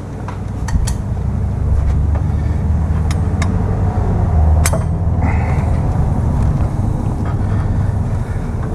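Steady low rumble of a motor vehicle running, with a few sharp clicks over it.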